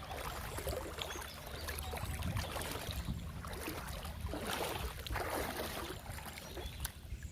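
Water sloshing and splashing in uneven surges over a low rumble.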